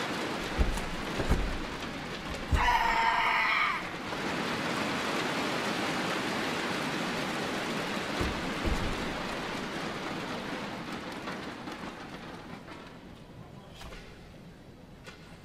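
Arena crowd applauding and cheering through a karate kata, with one loud held shout, a kiai, about three seconds in and a few dull thuds of bare feet on the mat. The crowd noise dies away over the last few seconds.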